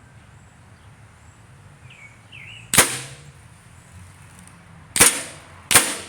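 Max Air 2 air gun firing three shots: one about three seconds in, then two more in quick succession less than a second apart near the end, each a sharp crack with a short ringing tail.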